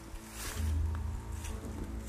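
Background music of sustained, held tones, with a deep bass note coming in about half a second in.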